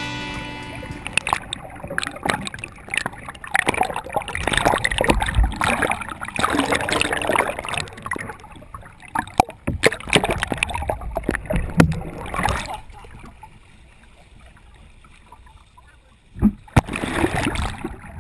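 Muffled underwater river noise: gurgling and bubbling with irregular knocks, as the background music fades out in the first second. Near the end a sharp thump, then louder rushing water.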